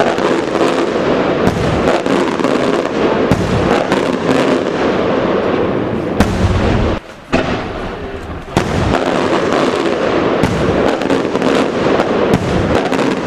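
Aerial fireworks display: a dense run of shell bursts and crackling bangs in quick succession, with a brief lull about seven seconds in.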